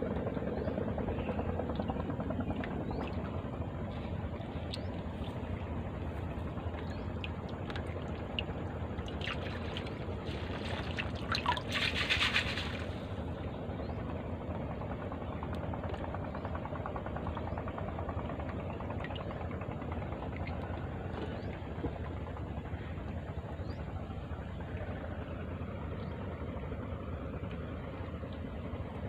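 Water splashing and dripping with scattered small clicks, loudest in a splashy burst of a few seconds around the middle, over a steady low rumble.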